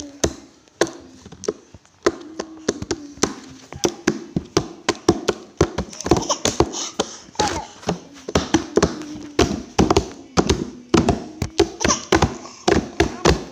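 A baby slapping a wooden tabletop with her open hands: quick, irregular slaps, several a second, with a few short babbling sounds in between.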